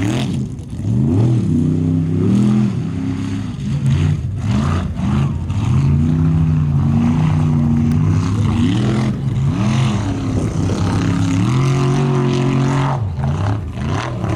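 Formula offroad race truck's engine revving hard through a run, its pitch repeatedly swinging up and down with the throttle, with a few stretches held steady at high revs.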